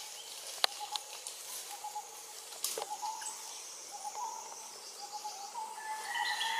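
Forest ambience of insects and birds: a steady high insect hiss under a pulsing call, with a few sharp clicks in the first three seconds and a bird calling in rising steps near the end.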